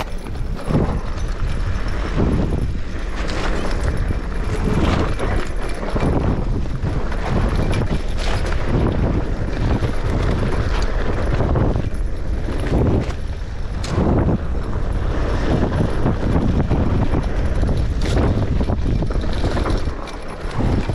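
Mountain bike descending a rough dirt singletrack: tyres crunching over dirt and rocks, with the bike rattling and knocking irregularly over the bumps, under a steady low rumble of wind noise.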